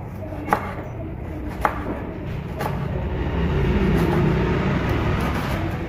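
Chef's knife slicing lemongrass on a wooden cutting board, a sharp tap about once a second as the blade meets the board. Under it a low rumbling noise swells and fades in the middle.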